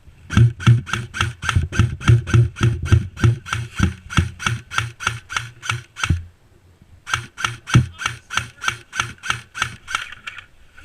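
Airsoft gun firing two long strings of sharp, evenly spaced shots, about four to five a second, with a pause of about a second between the strings.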